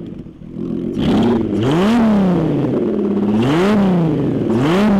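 Boat's VW 2.8 VR6 engine, exhausting out the back of the hull through a water-jacketed, baffled stainless exhaust, idles briefly and is then revved three times. Each rev rises and falls back.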